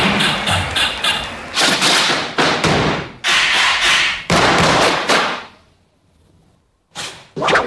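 Loud percussive hits from a dance routine's backing track, a string of heavy thuds each with a short ringing tail, about one a second. They stop for about a second, then two more sharp hits come just before the end.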